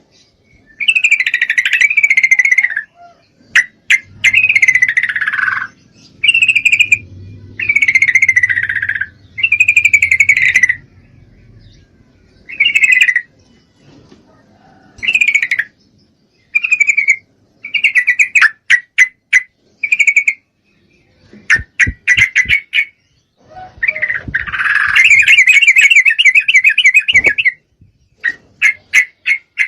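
Yellow-vented bulbul (trucukan) calling: a loud series of short, bubbly chattering phrases about a second apart, with a run of quick clipped notes around two-thirds of the way through and a longer chattering burst near the end. These are the calls of a female in breeding condition, the kind used to draw a male's response.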